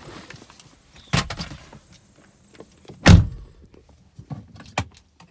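Car door of a 2003 Hyundai Sonata shutting with a heavy thunk about three seconds in, after a lighter knock about a second in. A few faint clicks follow.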